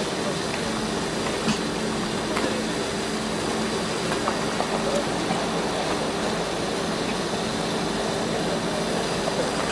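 Steady, engine-like hum of machinery running, with faint voices and small knocks now and then.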